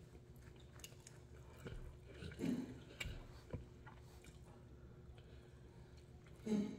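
A person chewing a mouthful of noodles close to the microphone, with small clicks and two short louder sounds, one about two and a half seconds in and one near the end.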